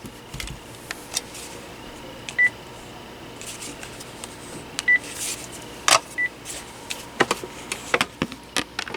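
Three short, high electronic beeps from a Panasonic KX-TG6841 DECT 6.0 cordless phone, a couple of seconds apart, with scattered clicks and knocks.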